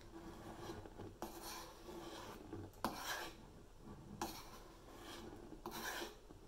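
Measuring scoop scraping through flour in a bowl and shaking flour into a bread machine pan: about four soft rasping shushes, each starting with a light click.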